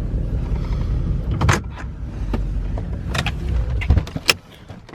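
Car engine and road rumble heard from inside the car, with several sharp clicks and knocks. The rumble cuts off about four seconds in and is followed by a couple of loud clicks.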